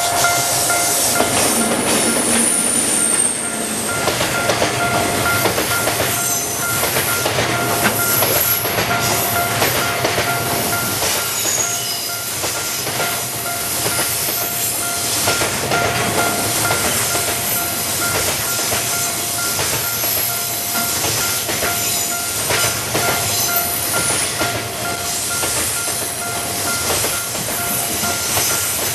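Freight train hauled by an ED79 electric locomotive rolling through a level crossing: the wagons' wheels clack over rail joints in a steady run, with a few brief high wheel squeals near the start, while the level-crossing warning bell keeps ringing.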